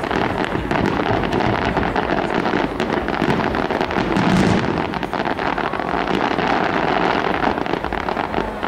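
Fireworks display: aerial shells bursting overhead with a dense, continuous crackle of many small reports.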